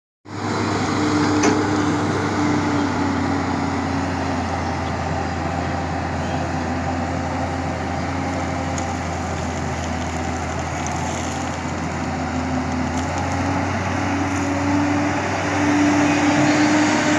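JCB tracked excavator running while digging soil: a steady engine hum with a tone that rises and falls a little as the arm and bucket work.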